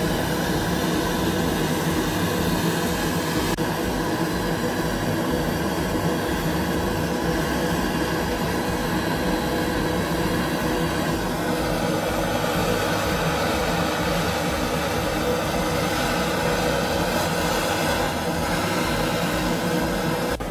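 Butane torch flame burning with a steady, constant rushing hiss as it heats the steel head of an adze hammer before quenching to harden it.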